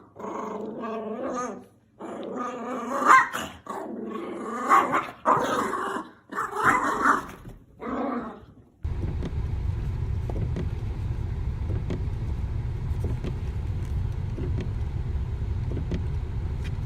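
A dog growling and barking in a series of short outbursts, then about nine seconds in a steady low rumble takes over.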